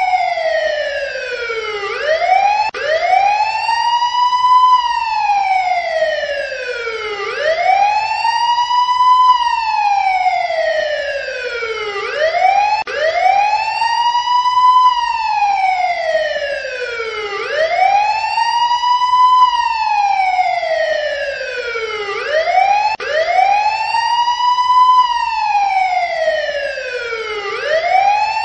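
Siren wailing in a slow, steady cycle. Each cycle rises from low to high in about two seconds, then falls back slowly over about three seconds. Roughly six rises and falls in the stretch, each with a slight break at its lowest point.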